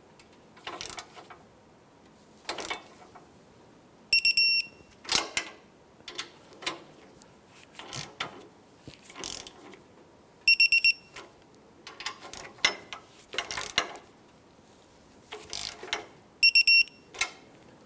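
Torque wrench on exhaust flange bolts: ratchet clicks and metal tool knocks, broken three times by a short, rapid electronic beeping, about 4, 10 and 16 seconds in. Each beep signals that a bolt has reached the set torque of 29.5 foot-pounds.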